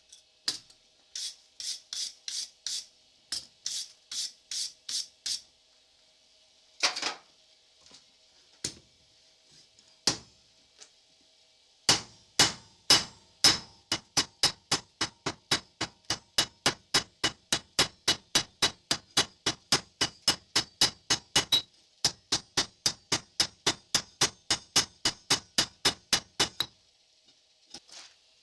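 Rapid, evenly spaced strokes of a hand tool working a 5160 spring-steel knife blank. A loose handful of strokes comes first, then from about the middle a steady run of about three strokes a second that stops shortly before the end.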